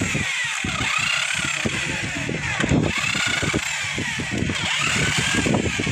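Engine-like mechanical running with a pitch that rises and falls again and again, over dense irregular low knocking.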